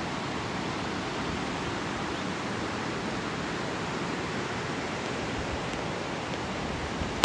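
Steady, even rushing noise at a constant level, with no distinct events in it.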